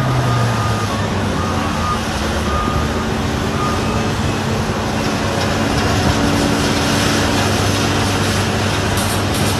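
Heavy construction machine's engine running steadily under work, with a reversing alarm giving several short beeps in the first few seconds.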